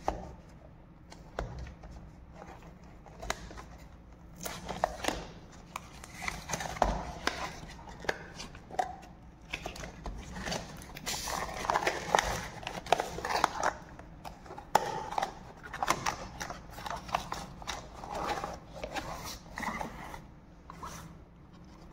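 Cardboard smartwatch packaging being opened and handled: a white card inner box slid out and its tray lifted, making irregular scrapes, taps and rustles of card, busier from about five seconds in.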